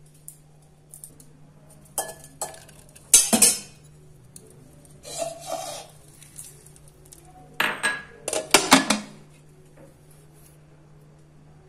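Kitchenware knocking and clinking as plastic bowls are handled in a glass mixing bowl and a steel lid is set on top: a few sharp knocks, the loudest about three seconds in, and a cluster of clinks near the end. A low steady hum runs underneath.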